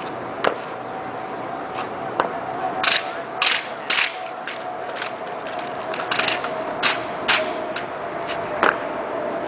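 Drill rifles being slapped and handled by a drill team: about a dozen sharp cracks in irregular groups, some in quick pairs, as hands strike the rifles. A faint steady hum runs underneath.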